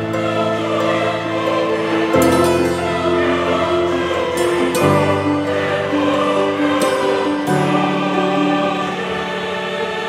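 Background music: held, sustained chords that shift every two to three seconds.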